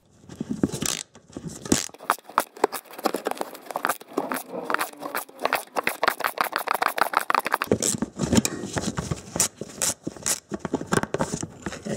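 Ratchet wrench with a socket and extension clicking in quick, irregular runs while it works a bolt loose.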